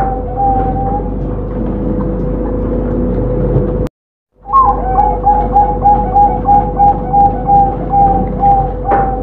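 Zebra dove (perkutut) cooing in a rapid run of short, even coo notes, about three a second, which stops about a second in. After a brief dropout in the sound near four seconds in, the dove starts a new phrase with a higher opening note and follows it with a long, evenly paced run of coos. This is the clear-voiced, evenly timed song that perkutut keepers prize.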